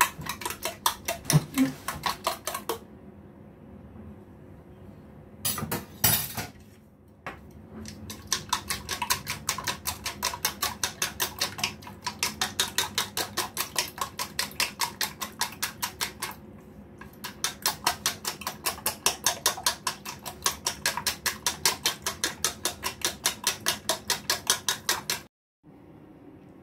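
Eggs and milk being beaten by hand in a stainless steel bowl, the utensil clicking against the metal in a fast, even rhythm with a couple of short pauses. It stops suddenly near the end.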